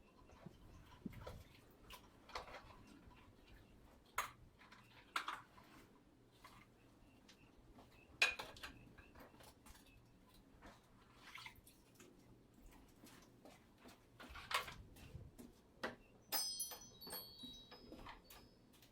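Scattered light knocks and clicks of objects being handled, the loudest about eight seconds in, with a brief high-pitched chirping near the end.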